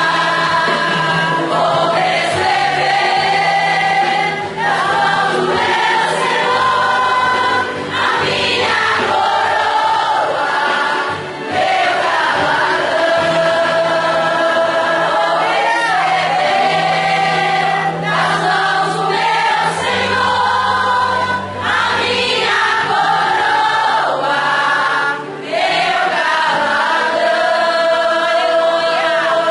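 A women's choir singing a Christian praise song together, many voices holding long notes in phrases with brief breaks between them, over a steady low accompaniment.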